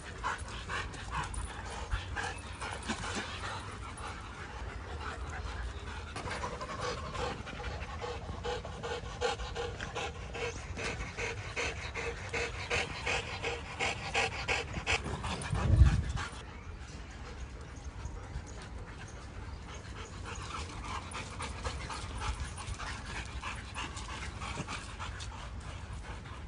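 Several young Rottweilers panting hard as they run and play together, with a loud low thump about sixteen seconds in.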